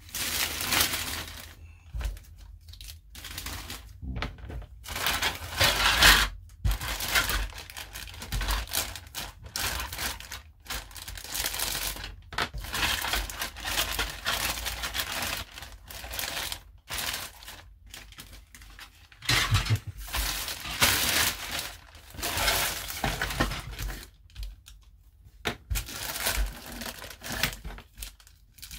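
Clear plastic parts bags crinkling and rustling as model kit pieces are handled and unwrapped, in irregular bursts with short pauses.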